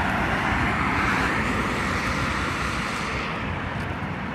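Road traffic noise: cars driving along the street through the intersection, a steady rush that slowly fades toward the end.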